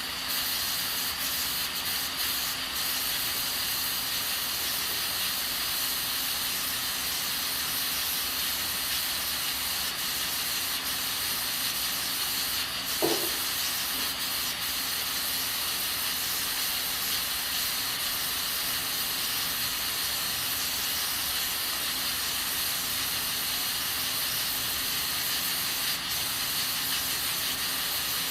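Aluminium pressure cooker on a gas stove hissing steadily from its weighted valve, the sign that it is up to pressure. One brief short sound stands out about halfway through.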